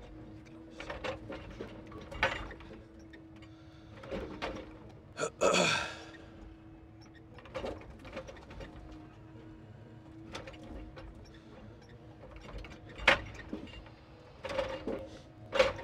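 Timber truck's hydraulic log-loading crane at work: a steady hydraulic hum, with scattered clicks and knocks as logs are grabbed and set onto the load. A brief loud sweep, falling in pitch, comes about five seconds in.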